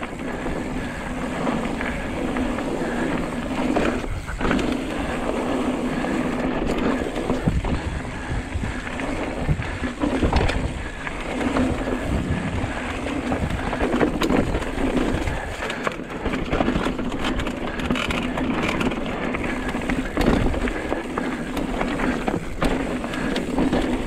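Hardtail mountain bike rolling along a dirt trail: steady rolling and rushing noise, with frequent rattles and knocks from the bike over bumps.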